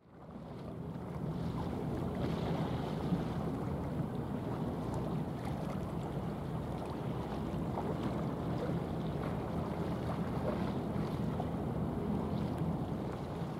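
Wind buffeting the microphone over choppy sea water: a steady low rumbling noise that fades in during the first second.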